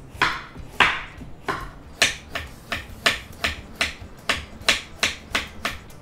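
Chef's knife slicing a carrot on a wooden cutting board: a steady run of crisp chops, about two to three a second.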